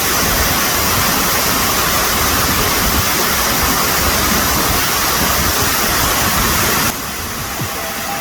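Waterfall rushing steadily, a dense hiss of falling water that cuts off abruptly about seven seconds in, leaving a quieter hiss.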